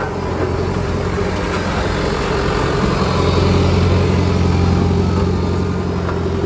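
Road roller's engine running steadily, growing louder for a couple of seconds in the middle before easing back.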